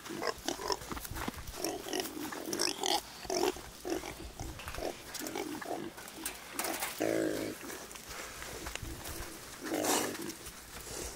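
Young pigs grunting close up in many short grunts, with a longer pitched grunt about seven seconds in and a louder, harsher call near the end.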